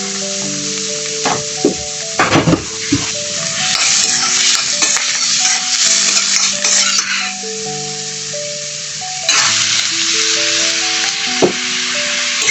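Food sizzling as it fries in a pan, the hiss swelling twice, with a spoon stirring and knocking against the pan around two seconds in and again near the end. Soft background music with a slow melody plays underneath.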